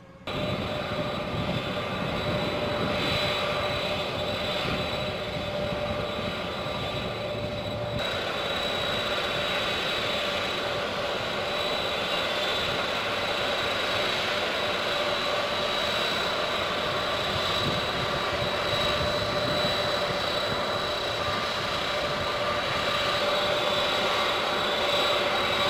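The four General Electric TF39 turbofan engines of a Lockheed C-5A Galaxy running on the ground: a steady jet whine with several high tones over a low rumble.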